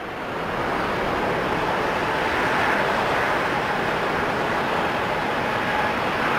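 Jet engines of a twin-engine narrowbody airliner running at high power on the runway: a loud, steady jet rush that builds over the first second and then holds.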